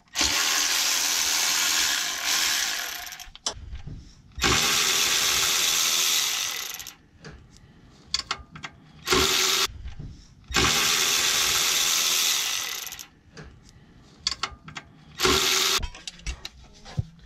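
Cordless electric ratchet with a 10 mm socket running in bursts as it backs out transmission pan bolts: three runs of two to three seconds and two short blips, with small clicks and knocks between them.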